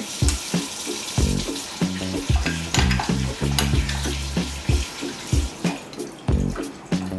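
Background music with a steady beat and bass line, over a steady crackling hiss.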